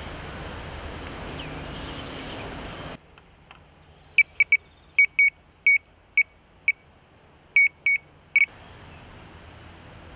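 Electronic bite alarm beeping in a run of about a dozen short, irregular bleeps as the fishing line moves across it while the rod is settled onto the alarm. Before the beeps, a steady rush of outdoor noise cuts off about three seconds in.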